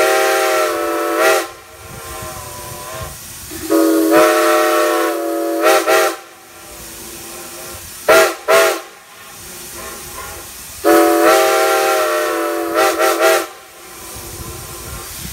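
Steam whistle of 2-10-0 steam locomotive No. 90 blowing the grade-crossing signal: a long blast already sounding, a second long blast, two quick short toots, then a final long blast. The train's steady running noise fills the gaps between blasts.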